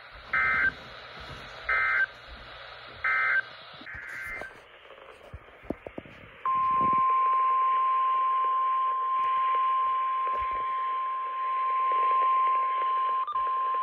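NOAA Weather Radio emergency alert over the receiver: three short bursts of SAME digital data, the buzzy EAS squawk, each about half a second, a second and a half apart, over radio hiss. Then, about six and a half seconds in, the warning alarm tone starts, a single loud steady beep that marks an incoming warning, with a few brief blips near the end.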